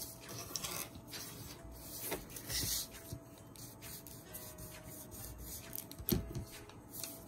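Faint rustling and rubbing of book-page paper being folded and glued by hand, with soft taps and a louder brushing swish around the middle.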